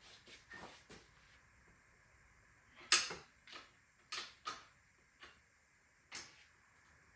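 Irregular short clicks and knocks of hand tools and metal bicycle parts being handled while the bike is taken apart, the loudest knock about three seconds in.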